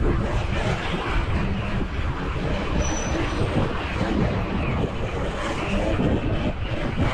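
Wind rumbling on the microphone of a camera on a moving bike, over road and traffic noise. It is a loud, continuous, uneven rumble with no clear engine note.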